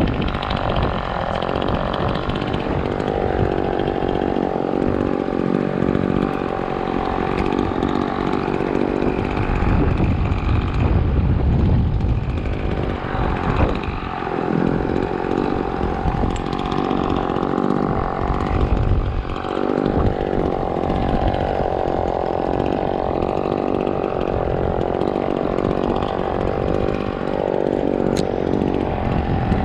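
Chainsaw running at high revs while cutting, its pitch dipping briefly a couple of times as the engine loads down.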